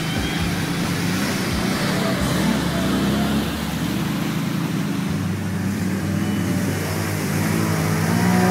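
ATV engines running, growing louder and rising in pitch near the end as the lead quad drives through deep muddy water.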